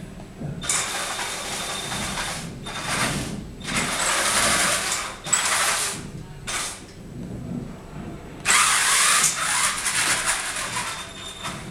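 Electric wheel drive motors of a two-wheeled self-balancing robot whirring in a series of separate bursts, each up to a couple of seconds long, as the wheels drive back and forth to swing the robot upright and hold its balance. The loudest burst comes about eight and a half seconds in.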